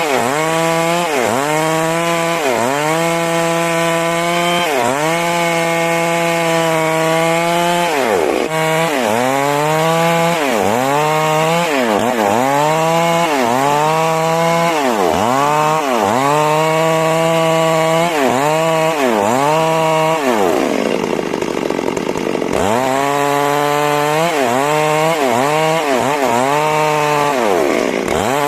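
Stihl MS 382 two-stroke chainsaw cutting lengthwise through a large rain tree log at high revs, its pitch dipping and climbing back over and over as the throttle comes off and on in the cut. About twenty seconds in the engine drops lower for a couple of seconds before revving up again.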